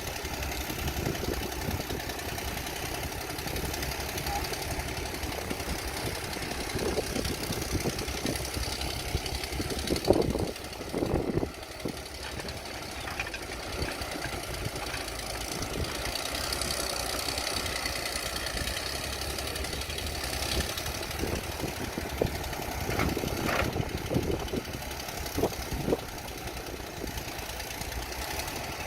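Old excavator's diesel engine running steadily, with scattered short knocks and a louder pair of thuds about a third of the way through as it works loading sand.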